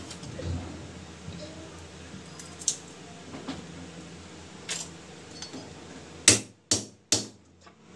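A kitchen knife hits garlic cloves on a wooden chopping board three times in quick succession, about half a second apart, near the end. A few faint clinks of kitchenware come before.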